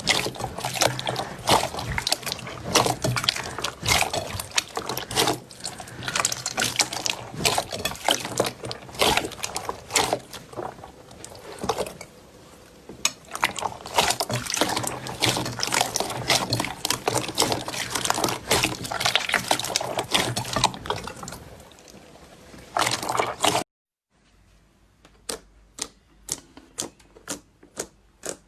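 Slime being squeezed and worked by hand: dense, wet squelching and crackling. It cuts off suddenly, and near the end sharp clicks follow, about two or three a second.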